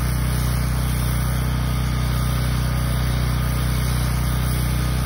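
Honda GX390 single-cylinder engine of a DeWalt 4200 PSI gas pressure washer running steadily, with the constant hiss of the water jet spraying onto concrete pavement.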